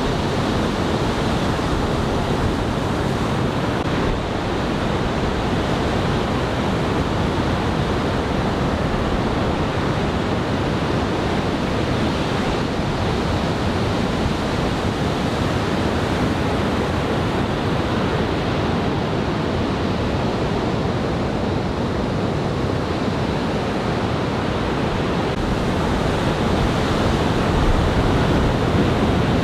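Ocean surf from a large typhoon swell breaking on the beach: a steady, loud rush of waves that swells a little louder near the end.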